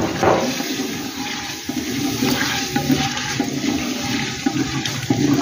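Flat spatula stirring and scraping chicken and masala in a clay handi, with hot oil and liquid sizzling and sloshing steadily.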